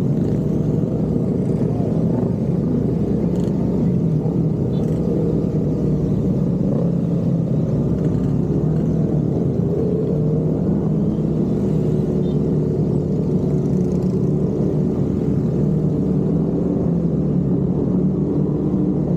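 Motorcycle engines running steadily while riding in a large group at low speed, with an even engine drone and no revving or gear changes.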